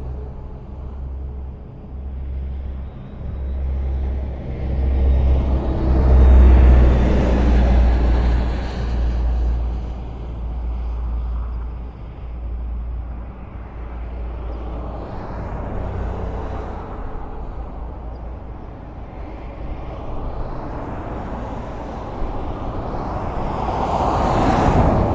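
Highway traffic: vehicles passing in a steady low rumble of engines and tyres, swelling as one passes close about six seconds in and again with a louder pass near the end.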